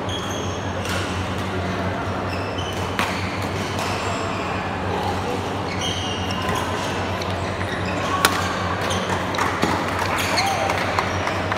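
Badminton doubles rally: sharp racket-on-shuttlecock hits a few seconds apart, coming quicker near the end, with short squeaks of court shoes on the mat, over a steady low hum.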